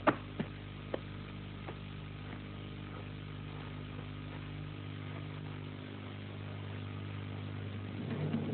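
Steady low electrical hum made of several layered pitches. A few sharp clicks come in the first two seconds, and a rustling noise grows louder near the end.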